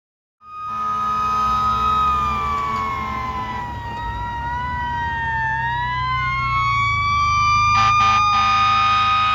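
Fire engine siren wailing, its pitch sliding slowly down and back up while a second siren tone sweeps across it, over a steady low rumble. It starts abruptly about half a second in, and two short sharp bursts come about eight seconds in.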